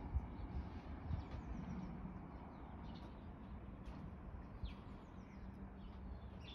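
Wild birds singing and calling, a string of short, high, falling chirps, over a low steady rumble.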